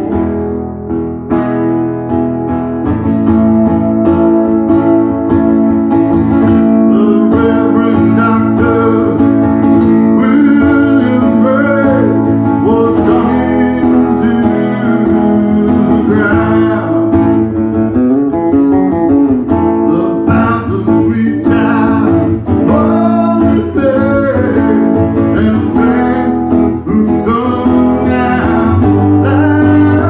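Live solo acoustic guitar strummed fast, with a man singing an alt-country song over it.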